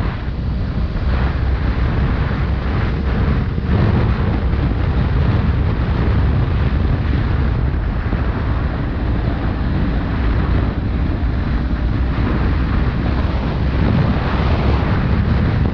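Wind buffeting the microphone on a moving motorcycle, a steady heavy rumble, with the BMW F800R's parallel-twin engine running underneath.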